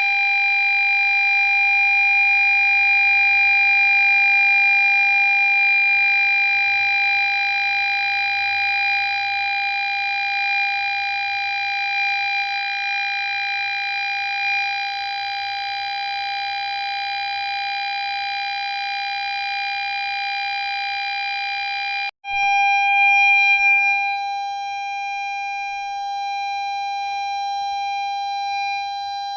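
Ford Fiesta parking sensor giving its continuous, unbroken warning tone, the solid tone that signals an obstacle very close behind the car. The steady electronic tone cuts out for an instant about three-quarters of the way through, then resumes.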